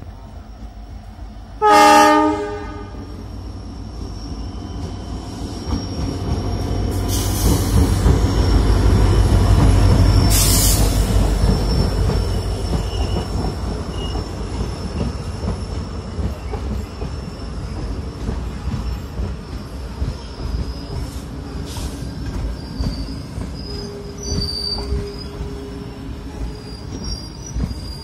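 Indian Railways express train passing at speed. It starts with one short, loud horn blast about two seconds in. Then the locomotive's rumble builds and peaks near the middle as it goes by, followed by the steady rattle of the coaches rolling past.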